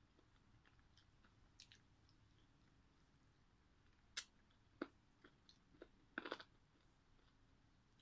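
Faint chewing and gnawing on a piece of steamed chicken on the bone, with a few sharp crunching clicks: one a little after four seconds, one near five seconds, and a quick cluster a little after six seconds.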